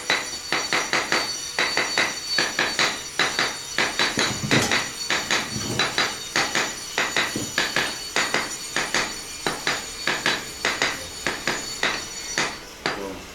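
A brick being tapped down into its mortar bed with a run of quick, even knocks, about three a second. The mason is seating it until its top edge meets the laser level's line, which sets a thin horizontal joint of about 3 mm.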